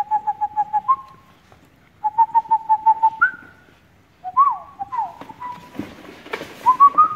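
A person whistling: two fast warbling trills on one note, each ending in a short higher note, then a few sliding notes and a rising note near the end.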